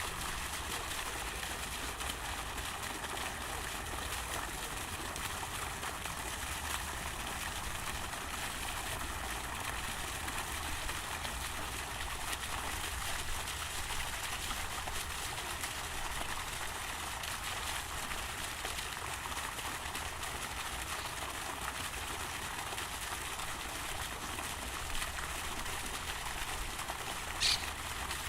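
Park fountain water splashing and falling steadily, with a low rumble underneath and one brief, sharp high sound near the end.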